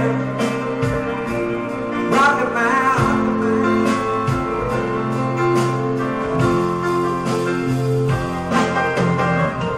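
Live band music with a grand piano and drums, and a singer at the piano.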